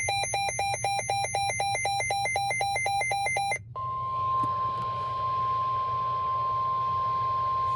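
Weather radio alert: rapid electronic beeping, about seven beeps a second, stops about three and a half seconds in. It is followed by a steady 1050 Hz NOAA Weather Radio warning alarm tone, which signals that a warning message is about to be broadcast.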